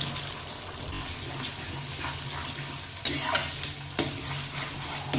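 Beaten eggs sizzling in hot oil in a steel kadai while a metal spoon stirs and scrapes them, with a few sharp clinks of the spoon against the pan about three and four seconds in and again at the end.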